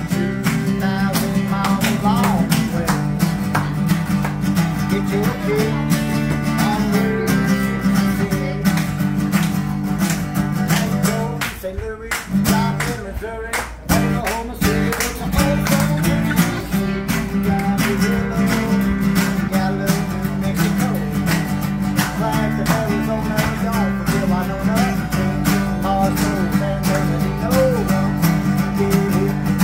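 Two acoustic guitars strummed together in a steady rhythm, live, with a brief drop in the playing about twelve seconds in.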